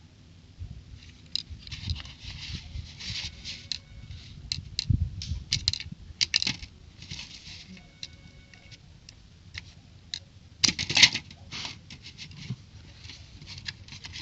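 Plastic toy building bricks and parts being handled, clicking, rattling and rustling. A burst of louder clicks comes about eleven seconds in.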